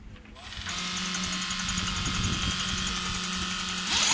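Makita cordless drill turning a large sailboat winch through a winch-handle adapter. It starts about half a second in and runs steadily with a whine and a fast even ticking, then speeds up and gets louder just before the end.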